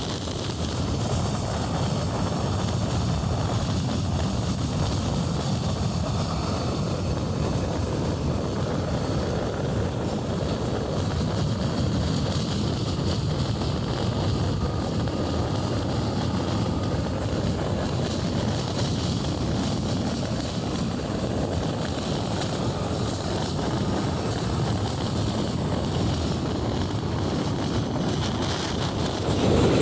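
Steady rumble of a moving passenger train heard from on board: wheels running on the rails and rushing air. It grows louder right at the end.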